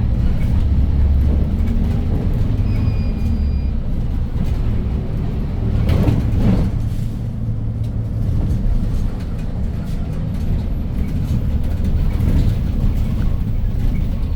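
Hyundai New Super Aerocity city bus under way, heard from inside: its C6AF CNG engine running with a steady low drone and road noise. A brief louder rush comes about six seconds in.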